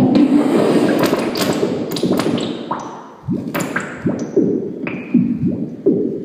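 Electronic noise music played live: a dense, crackling wash of noise that thins out over about three seconds. It then turns into a string of sharp hits, each with a quick upward pitch sweep and a short ringing ping, about one or two a second.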